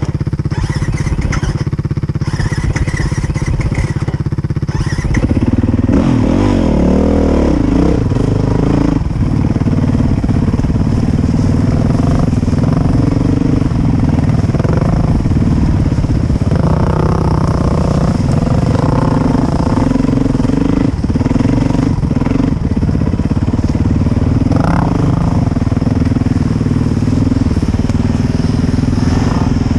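Dirt bike engine running steadily at low revs for the first few seconds, then revving up about five seconds in and running on with pitch rising and falling as the throttle opens and closes on the trail.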